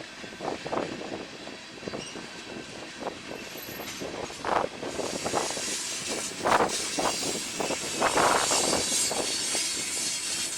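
BNSF train rolling by slowly, mixed with gusty wind buffeting the microphone; the rushing wind noise grows louder about halfway through.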